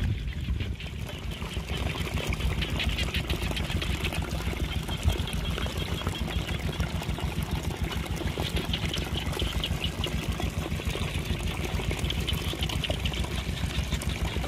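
A small engine running steadily, with water pouring or splashing over it.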